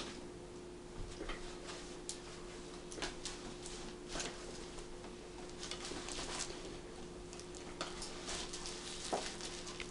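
A wirehaired dachshund chewing and mouthing a plush toy cow, making soft, irregular clicks and rustles. A faint steady hum runs underneath.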